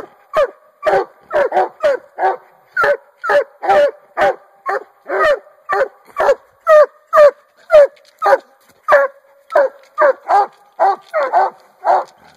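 Young Walker coonhound barking treed up a tree trunk: a steady, unbroken string of barks about two a second, each dropping in pitch.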